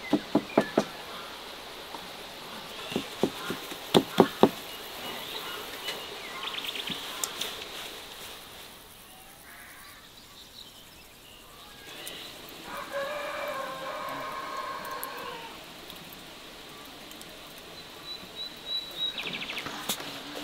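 A rooster crowing once, one long call lasting about three seconds, a little past the middle. Sharp knocks come in a quick run at the start and again about four seconds in.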